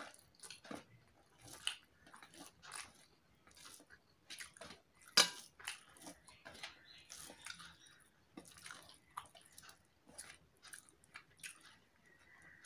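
Close-up eating sounds: wet chewing and mouth smacks, with fingers mixing rice and hilsa fish curry on a steel plate, in many short irregular clicks. One louder, sharper click about five seconds in.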